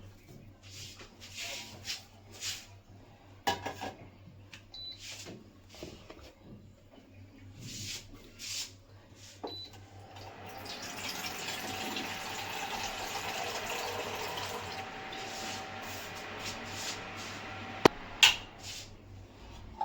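Kitchen handling: a few light clinks and knocks of dishes, then about ten seconds in water starts running steadily for some eight seconds. A sharp click and a knock come near the end.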